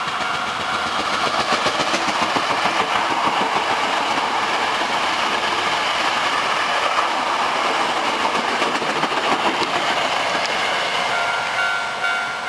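Eight-car Hankyu 1300 series electric train passing at speed, its wheels clattering over the rail joints in a dense run of clicks. About eleven seconds in, as the train clears, the two-tone level-crossing alarm bell comes back through.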